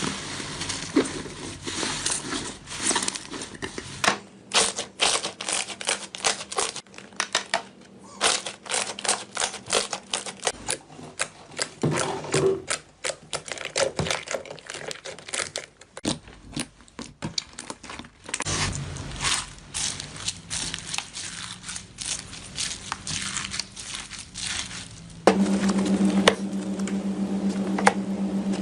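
Slime being squeezed, poked and stretched by hand, giving dense runs of small wet clicks and crackling pops of trapped air. Near the end a steady low hum comes in under the clicking.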